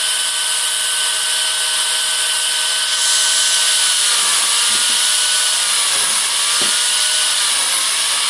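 Bench-mounted chainsaw running, cutting branches on the top of its bar. Its whine dips in pitch several times as the chain bites into the wood, and the cutting noise grows harsher about three seconds in.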